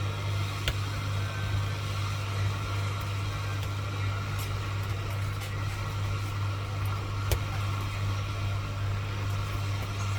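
A steady low machine hum with an even hiss over it and a few light clicks.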